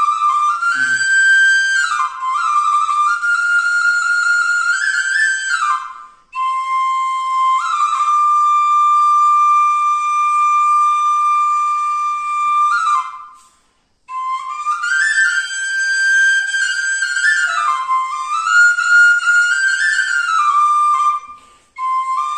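Bansuri (small bamboo flute) playing a Pahadi folk melody solo: phrases of a few seconds, with a long held note in the middle, and three brief breaks between them for breath.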